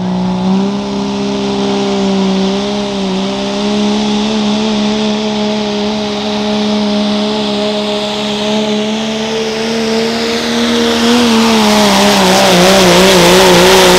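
Turbocharged diesel pickup engine at full throttle pulling a sled, holding a steady high pitch. From about three-quarters of the way through, the pitch wavers rapidly up and down as a rushing hiss builds and it gets louder toward the end.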